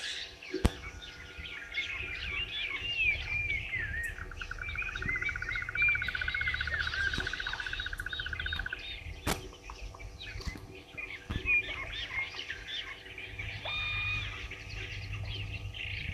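Several birds chirping and calling together in a natural bushveld chorus, with one bird giving a rapid, even trill for about five seconds in the middle. A few sharp snaps cut through, one about half a second in and one about nine seconds in.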